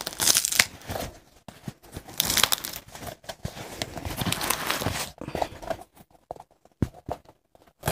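A glued-on shoe sole being pulled away from the boot's upper by hand: the old glue crackles and tears as it gives. After about five seconds it thins to a few scattered clicks and rustles.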